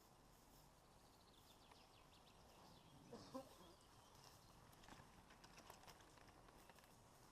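Near silence with faint scattered ticks and crackles, and a brief faint pitched sound about three seconds in.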